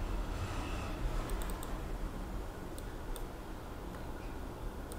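Light clicking at a computer, from a mouse and keys: a quick cluster of four clicks about a second in, then a few single clicks, over a low steady room hum.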